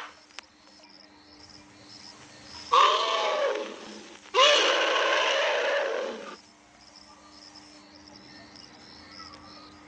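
Asian elephant trumpeting twice: a short call about three seconds in, then a longer one of nearly two seconds just after, each a high call with many overtones.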